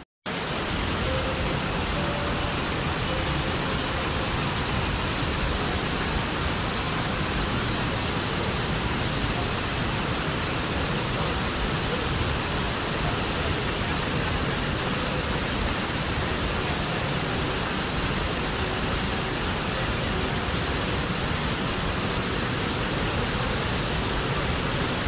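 Waterfall rushing close to the microphone: a loud, steady, even wash of falling water that cuts in abruptly at the start.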